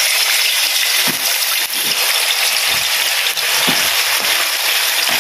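Turmeric-marinated chicken pieces deep-frying in hot oil in a wok: a loud, steady sizzle, with a few faint knocks scattered through it.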